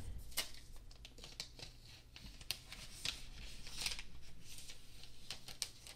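Clear protective plastic film being peeled off the back of an iPad Pro: faint crinkling and rustling with a few light clicks of the film and fingers against the tablet.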